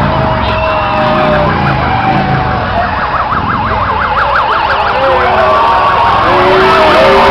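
Emergency-vehicle siren rapidly sweeping up and down in pitch, several swings a second, over loud street noise. Near the end the sweeping gives way to steadier held tones.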